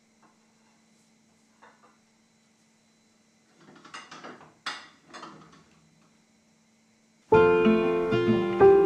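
Quiet kitchen handling sounds while a dishwasher is unloaded: a couple of light clicks, then a few seconds of soft clattering. About seven seconds in, acoustic guitar and piano music starts suddenly and is by far the loudest sound.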